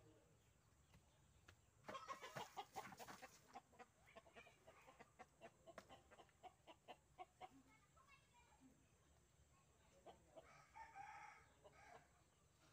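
Faint chickens clucking, with a longer call about two seconds in, a run of short clucks after it, and another call just after ten seconds.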